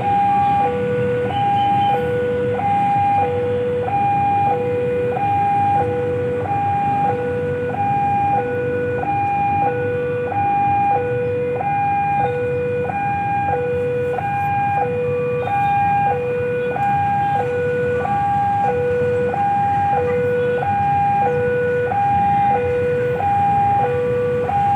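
Railway level-crossing warning alarm sounding: an electronic two-tone signal alternating evenly between a higher and a lower tone, each held about half a second, repeating steadily as a train approaches. A low rumble lies underneath.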